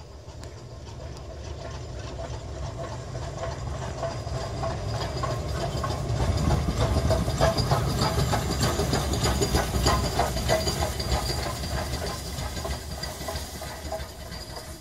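LMS Stanier 8F 2-8-0 steam locomotive 48151 running slowly past, shunting light engine: steam hissing over a low rumble with irregular clanks from the wheels and motion. It grows louder to a peak as it passes about halfway through, then fades as it draws away.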